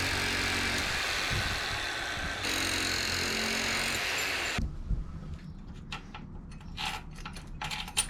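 A steady mechanical noise, hissing across the range with a low hum in it, that cuts off suddenly about four and a half seconds in. Scattered clicks and knocks of metal parts and tools being handled follow.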